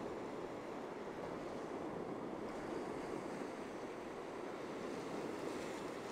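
Ocean surf: a continuous wash of waves breaking on a beach, with a gentle swell in loudness and no separate crashes.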